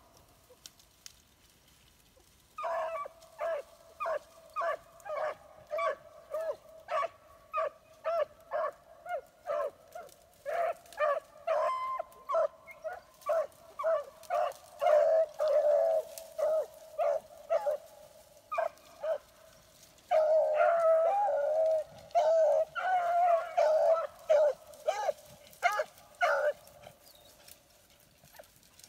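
Beagle hounds baying on a trail, a run of short repeated bays about two a second that starts a few seconds in. Near the end several voices overlap before they stop.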